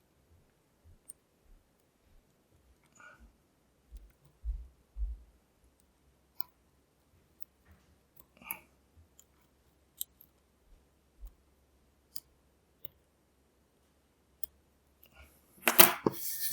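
Faint, sparse metallic clicks and taps of a lock pick working the pin stack of a Lockwood V7 padlock, with the core held in a false set while the picker feels for spool-pin counter-rotation. A louder burst of clatter comes near the end.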